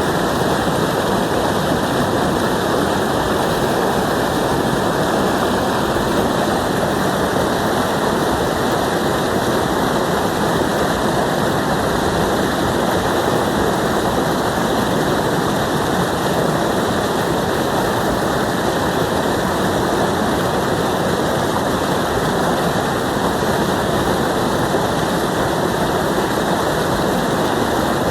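Gurgling water running steadily, as at a small waterfall.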